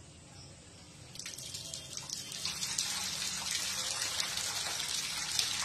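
Water running and splashing, starting about a second in and growing louder, then settling into a steady hiss.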